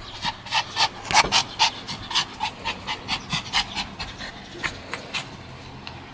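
Pomeranian panting quickly and rhythmically, about three or four breaths a second, easing off over the last couple of seconds.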